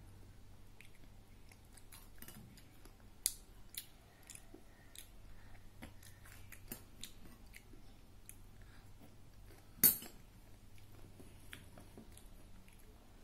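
A metal spoon clinking and scraping in a small ceramic bowl, with a child chewing. Scattered light clicks, two sharper clinks a little after three seconds in, and the loudest clink about ten seconds in.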